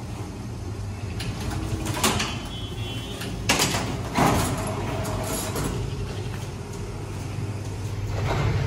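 Semi-automatic carton strapping machine humming steadily, with sharp snapping, rasping strokes about two, three and a half and four seconds in as straps are pulled tight and sealed around a carton.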